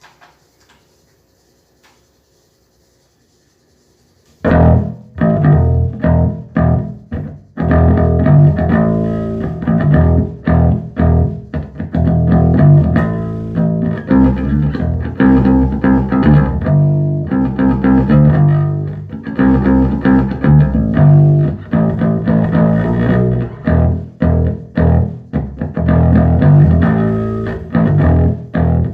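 Electric bass guitar played through a 1974 Ampeg B-15N tube bass amp, freshly recapped; after about four seconds of near silence, a steady line of plucked notes starts and runs on.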